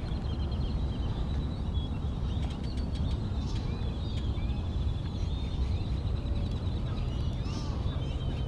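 Birds calling and chirping, with short rapid trills recurring, over a steady low rumble.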